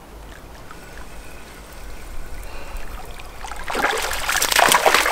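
A hooked brook trout splashing at the surface of shallow lake water as it is reeled in to the shore. The splashing starts about three and a half seconds in and grows louder toward the end.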